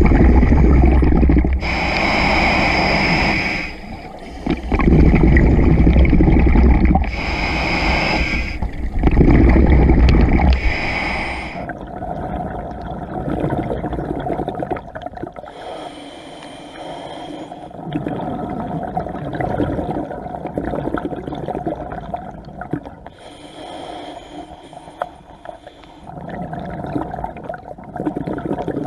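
Scuba regulator breathing heard underwater: hissing inhales through the regulator alternate with bubbling exhales. The breaths are loudest in the first dozen seconds and quieter after that.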